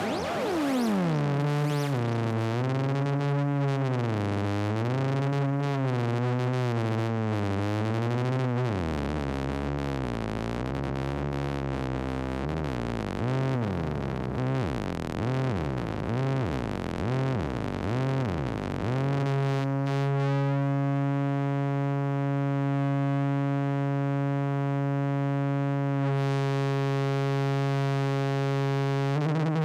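A single electronic synthesizer tone, rich in overtones. Its pitch drops at the start, then wobbles up and down in a slow, regular vibrato. It next swings in wide up-and-down sweeps, and about two-thirds of the way through it settles into a steady low drone.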